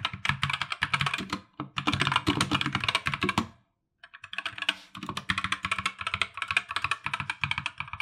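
Fast typing on a Geek GK61 mechanical keyboard with red Gateron optical switches and clear Crystal Crown keycaps: a dense clatter of keystrokes with a slightly deeper tone. It breaks off briefly twice, the longer pause about half-way through.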